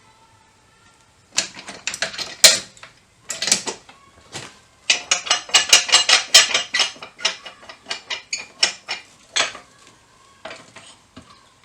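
Metal tools clanking and clicking against a strut and coil spring compressor as the compressed spring is let back down. There is a sharp clank about two and a half seconds in and a run of quick, even clicks near the middle.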